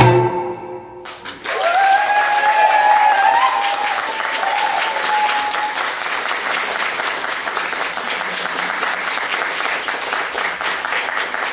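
The dance music stops, and about a second and a half later an audience breaks into steady applause. A long, drawn-out cheer from the crowd rings out over the clapping for several seconds.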